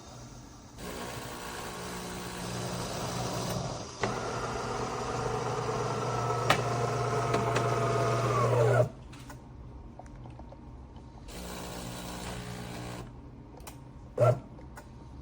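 De'Longhi Magnifica Start espresso machine running: a steady mechanical hum that builds for about eight seconds, with a couple of clicks, then cuts off abruptly. A brief burst of the same hum follows near the end.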